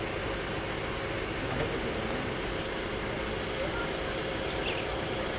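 Steady hum and hiss of an idling vehicle engine, with a few faint, short bird chirps.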